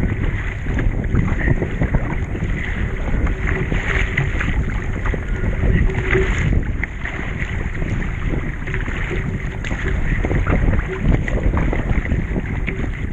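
Wind buffeting the GoPro microphone over water splashing and slapping around a surf ski kayak being paddled through ocean chop.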